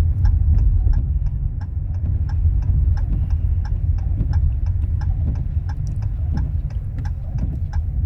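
A car's turn-signal indicator clicking in an even, quick ticking, over the steady low rumble of the car driving on a snowy road, heard from inside the cabin.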